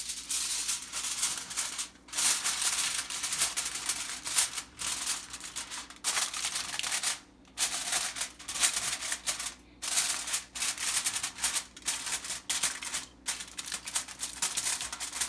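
Aluminium foil crinkling and rustling as it is pressed and crimped over a baking pan, in uneven spurts with a few short pauses.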